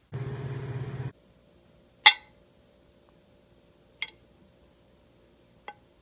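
A low buzzing hum lasts about a second and stops abruptly. Then come three sharp ringing clinks of a ceramic mug against a ceramic plate, about two seconds apart, the first the loudest and the last the faintest.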